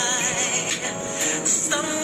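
Background music: a song with a sung melody over a steady beat with jingling percussion.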